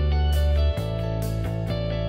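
Background music led by guitar over a steady beat, with the bass note changing about three quarters of a second in.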